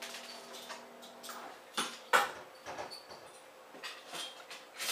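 Light clicks and knocks of objects being handled, the sharpest a single knock about two seconds in, over a faint steady hum.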